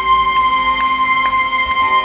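A steady high-pitched electronic tone holding one pitch, with faint ticks about twice a second.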